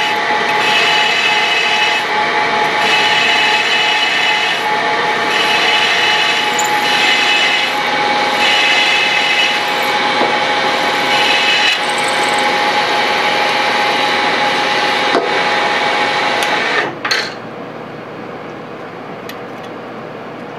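Machine spindle running while a number 25 pilot drill cuts a hole for a 10-24 tap in metal, the cutting sound swelling and easing every couple of seconds. About 17 seconds in the spindle is switched off and the sound drops to a lower steady hum.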